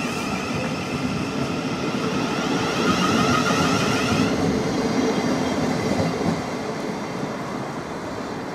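Thameslink Class 700 Desiro City electric multiple unit pulling out and accelerating past, its traction motors whining in sloping tones for the first four seconds or so. The rumble then fades as the train draws away.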